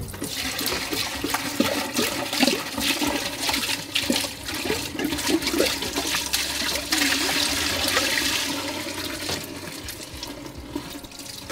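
Waste pouring out of a portable cassette toilet's spout into a dump-station drain, a steady splashing rush with repeated gurgling glugs, tailing off toward the end as the cassette empties.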